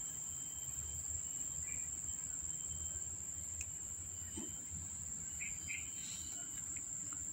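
A steady, high-pitched insect trill running without a break, over a low hum and a few faint ticks.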